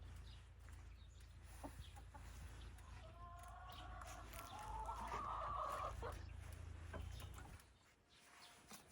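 Chickens clucking, with a rooster crowing for about three seconds near the middle, over a low steady rumble that stops shortly before the end.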